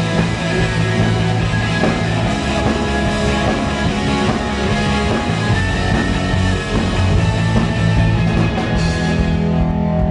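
Rock band playing live, loud and dense, with bass, drums and guitar in an instrumental intro. The high cymbal wash thins out near the end.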